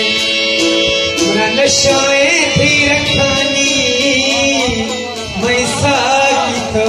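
Balochi folk song: a man singing with wavering, ornamented pitch, accompanied by a harmonium, a long-necked plucked lute and a tabla pair keeping a fast beat.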